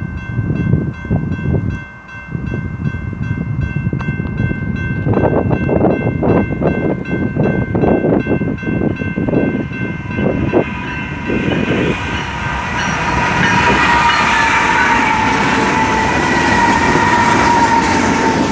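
BNSF mixed freight train approaching and passing: its noise grows over the first dozen seconds as the locomotives come up, then the freight cars roll by with steady wheels-on-rails noise. A steady high tone sounds throughout.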